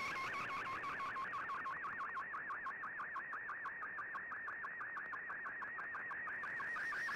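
Shortwave radio digital picture transmission in MFSK picture mode, heard through the receiver. A single tone sweeps up and down in an even, repeating warble about seven or eight times a second, as each scan line of the image is sent.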